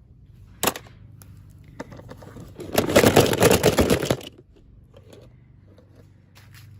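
Toy packaging being opened by hand: a sharp snap about half a second in, then about a second and a half of loud, rapid crackling.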